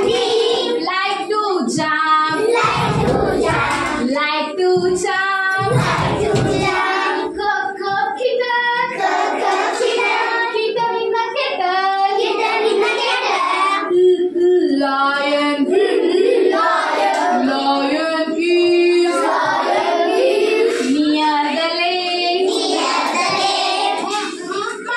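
A group of young children singing an English alphabet phonics song in chorus, with a woman's voice leading.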